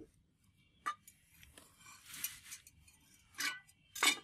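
Steel cleaver blade being turned over on a concrete floor: light clicks, a short scrape about halfway through, and a louder metallic clink near the end.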